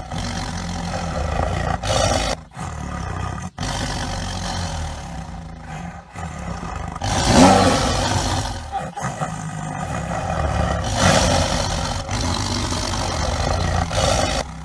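Tigers roaring in a series of spliced clips, cut off abruptly between calls. The loudest roar comes about seven seconds in and falls in pitch.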